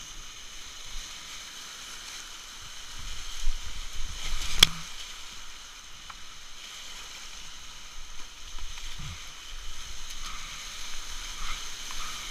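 Whitewater rushing and splashing around a kayak paddled down a rapid, a steady hiss with small surges, and a single sharp knock about four and a half seconds in.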